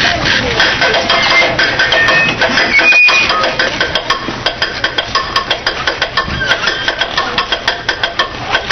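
Fast, steady percussive strikes, about four a second, over a general din, with a few short high whistle-like tones in the first few seconds and a brief dropout about three seconds in.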